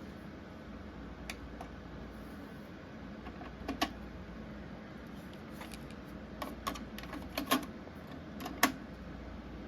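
Mechanical clicks and clacks from a JVC TD-W309 cassette deck's piano keys and tape transport being worked, irregular and several close together in the second half, over a steady low hiss and hum.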